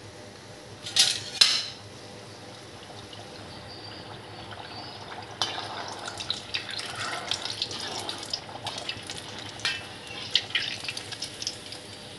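Hot oil sizzling and crackling in a kadhai as a stuffed onion kachori fries on high flame, the crackle growing busier about five seconds in. Two short, loud noises come about a second in, and a slotted metal spoon moves the kachori in the oil.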